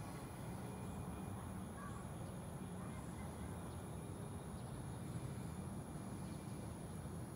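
Faint steady background noise: a low rumble with a thin, high-pitched steady tone above it.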